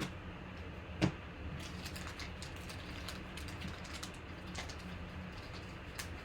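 Trading cards being handled and flipped through: soft clicks and rustles of card on card, with one sharper click about a second in and another near the end, over a low steady hum.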